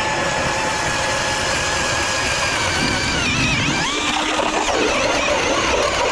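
Cordless drill turning an ice auger through the ice, its motor whining steadily and sagging slightly in pitch under load, then wavering and changing pitch about halfway through.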